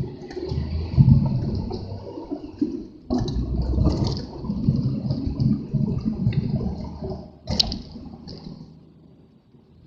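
Strong wind buffeting the microphone in gusts: a low rushing rumble that swells about a second in and again suddenly about three seconds in, then dies down near the end. There is a single sharp click about three-quarters of the way through.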